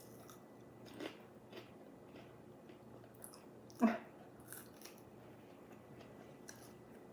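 Quiet close-up chewing of food, with a few soft mouth clicks and a short hummed sound about four seconds in.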